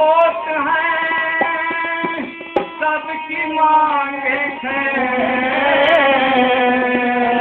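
Bhajan, a devotional song, played on harmonium and dholak: the harmonium holds steady chords while a voice sings a wavering melody over them, with occasional strokes on the dholak.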